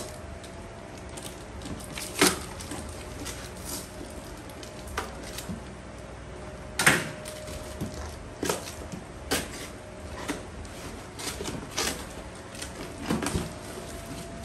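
Handling sounds of unpacking a parcel of bags: scattered knocks, clicks and rustles, with a louder knock about two seconds in and another near seven seconds.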